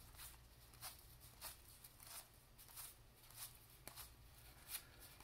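Pro Set hockey trading cards flipped one at a time from one stack to the other: faint swishes of card stock sliding over card, about two a second.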